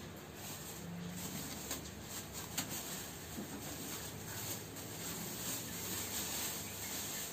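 Clear plastic bag crinkling and rustling as it is peeled off a PC tower case, with one sharp click about two and a half seconds in.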